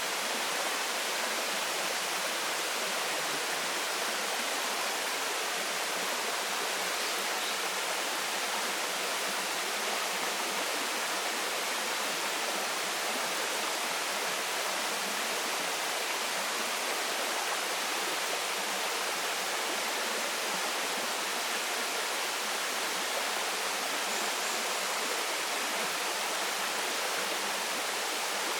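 Waterfall splashing steadily into a stream: an even, unbroken rush of falling and running water.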